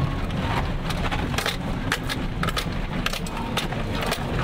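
Nissan VG30 V6 truck heard from inside the cab on a rough off-road trail: the engine runs low under a continuous clatter of sharp knocks and rattles as the truck jolts over uneven ground.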